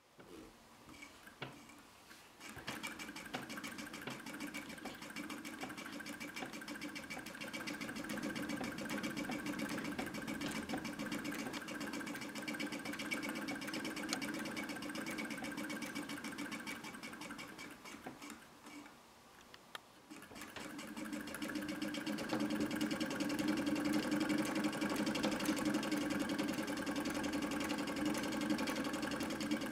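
1892 Willcox & Gibbs chainstitch treadle sewing machine running, its needle stitching through layered cloth with a fast, even clatter. It gets going about two seconds in, drops almost to a stop about two-thirds of the way through, then picks up again a little louder.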